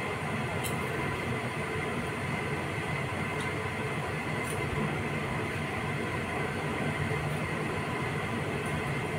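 Steady hum and whirr of a motor-driven appliance, with a faint whine on top, and a few faint crunches as snack puffs are chewed.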